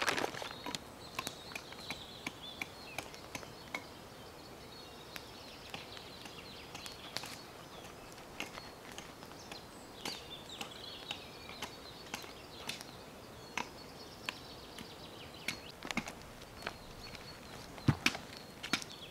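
A knife slicing raw meat on a sheet of paper, with scattered light clicks, taps and paper crinkles, and a few louder knocks near the end. A bird sings in the background.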